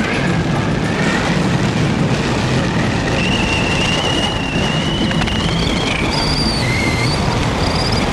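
Steady rush of wind and road noise from a moving car, picked up by a camera held out of the car window. A thin, high whistle-like tone is held for a couple of seconds midway, and a few short higher tones come near the end.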